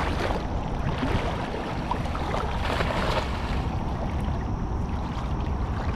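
Wind buffeting the microphone in a steady low rumble, over water sloshing and splashing.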